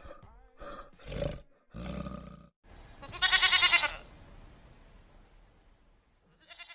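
A bear gives three short low grunts, then a goat bleats once, a loud wavering bleat of under a second just after the middle; a brief faint bleat begins near the end.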